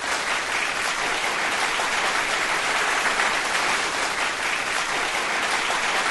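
Steady applause.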